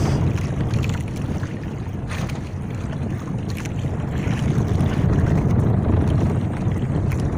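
Steady wind buffeting the microphone, over the wash of the sea around a small outrigger boat.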